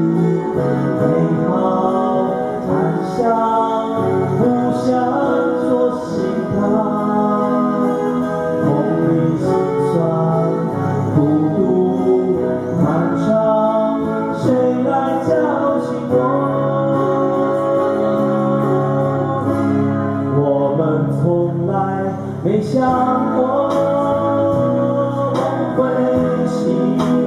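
Male voices singing a song together, accompanied by two silent guitars strummed and picked, played live through a small PA.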